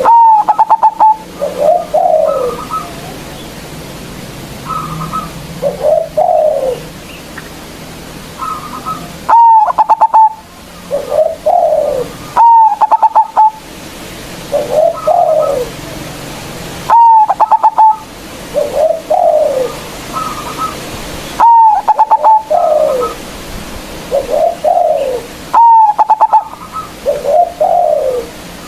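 Zebra dove (perkutut) cooing loudly, repeating its song phrase every few seconds: a sharp high opening note, a quick rattling run, then lower rolling coos. Short higher chirps fall between the phrases.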